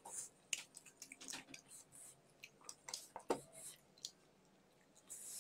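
Faint eating sounds up close: chewing and wet mouth smacks with scattered short clicks as fried chicken is pulled apart by hand and eaten, going quiet for about a second near the end.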